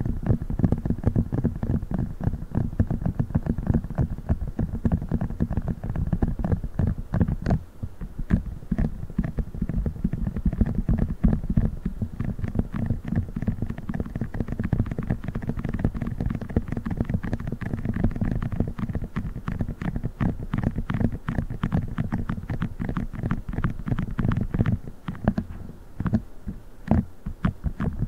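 Rapid tapping on a silicone funnel: a dense run of quick taps, with brief lulls about seven and about twenty-five seconds in.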